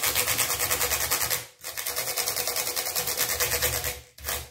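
A small bristle brush scrubbing across the keys of a detached laptop keyboard to clean out dust, in fast back-and-forth strokes. It breaks off briefly about one and a half seconds in, then carries on.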